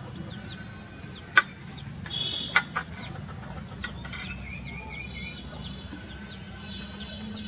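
A knife clicks sharply against a steel plate while ripe papaya is cut: one click about a second and a half in, then two close together near the middle, with a short rustle just before them. Birds chirp all the while in the background, a quick repeated falling chirp.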